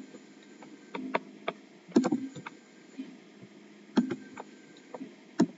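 Light ticking clicks, roughly one small cluster a second, over a faint steady hiss.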